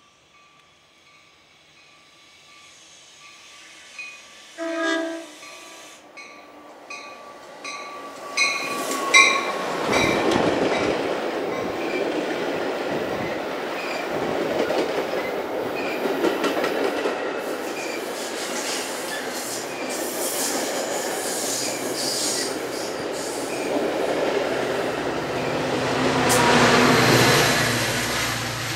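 Metra bilevel commuter train arriving. There is faint repeated ringing, and a short horn blast about five seconds in. From about ten seconds the rushing and clatter of the cars passing close by takes over, growing loudest near the end as the diesel locomotive pushing at the rear goes past with its engine rumbling.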